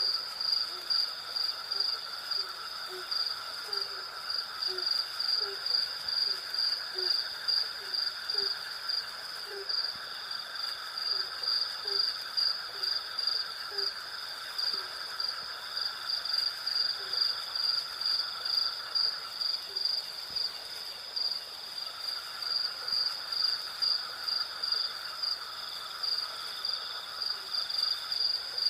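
Night chorus of crickets chirping in an even, pulsing rhythm over a steadier high insect trill and a lower continuous drone. Short low calls repeat about twice a second through the first half, then thin out to a few.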